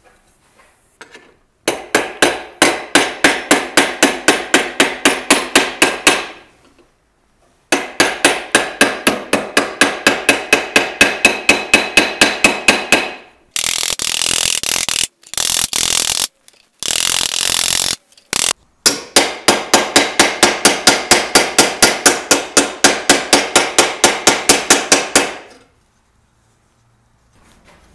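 Small 8-ounce hammer lightly tapping sheet steel held over the edge of a brick chisel, chasing decorative lines into a helmet's ocular piece. The taps come in three long runs at about five ringing metallic taps a second. In the middle, a few seconds of harsher rasping noise comes in short stretches that start and stop abruptly.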